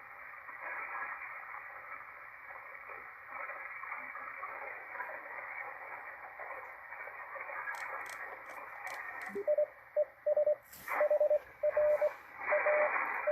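Shortwave receiver static hissing from a Malachite DSP SDR receiver's speaker. About nine seconds in, a Morse code (CW) signal is tuned in: a single steady tone keyed on and off in dots and dashes. A few faint clicks come just before it.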